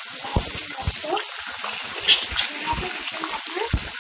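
Slit long green chillies frying in hot oil: a steady sizzle with scattered crackles and a few pops.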